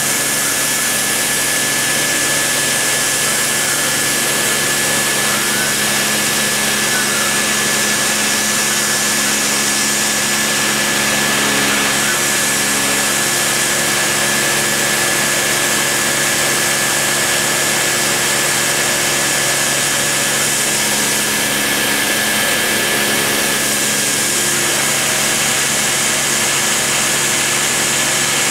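Dremel rotary tool spinning at high speed with a steady high-pitched whine as its small bit cuts a profile in MDF, over a constant hiss.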